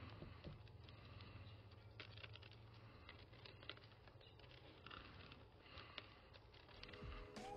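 Faint, irregular scratching of a red-handled root hook raking soil out of a bougainvillea cutting's root ball, with loose soil grains pattering onto a wooden table.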